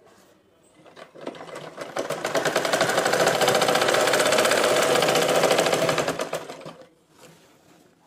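Domestic sewing machine stitching through cloth in a fast, even clatter. It picks up speed about a second in, runs steadily, then slows and stops near the end.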